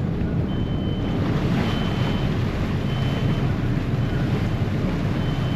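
Harbour passenger ferry pulling away from a wharf: a low engine rumble and propeller wash churning the water, with wind buffeting the microphone. A short, high beep repeats about once a second.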